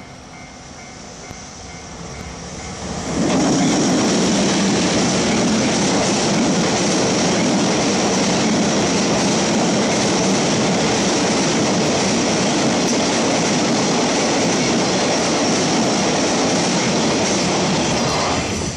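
A freight train hauled by a JR Freight EF210 electric locomotive passing close by. The noise builds over the first three seconds, jumps sharply as the train arrives, and runs loud and steady with wheels on rails for about fifteen seconds before falling away near the end.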